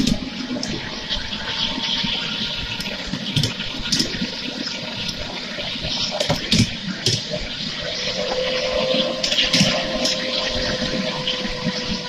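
Ride-on miniature railway train running along the track: a steady rushing rumble of wheels on rail, with frequent sharp clicks and knocks and a faint steady whine in the second half.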